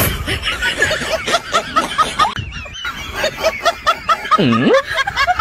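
Rapid snickering laughter, a string of short high-pitched giggles at about four a second, pausing briefly partway through. Near the end comes a single falling-then-rising pitch glide.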